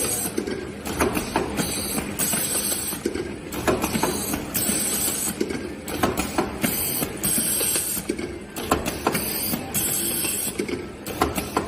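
Automatic labeling machine for glass jars running, with many sharp clicks and a high hiss that comes and goes every second or two as it cycles.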